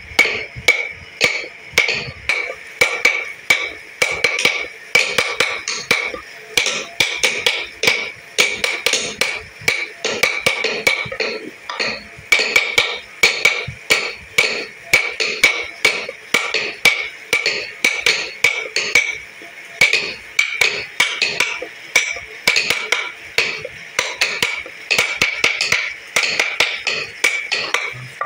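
Small hammer tapping a steel carving chisel into hardwood: quick sharp taps, two or three a second in uneven runs, each with a short metallic ring.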